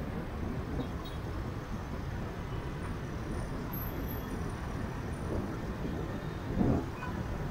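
Riding a motorbike through city traffic: a steady rumble of engine and road noise, with a brief louder swell near the end.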